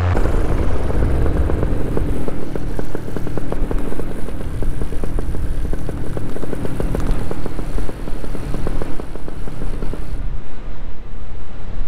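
Paramotor in flight: wind rushing and buffeting the microphone over a rough engine-and-propeller rumble, with no clear steady engine note.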